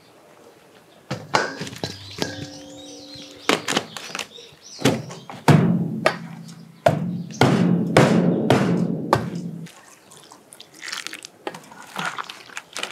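Steamed potatoes dropped into a stainless steel bowl, which rings briefly, then a metal cup pounding and pressing them in the bowl: a run of dull thunks and metallic knocks as the potatoes are mashed. The knocking stops about three seconds before the end.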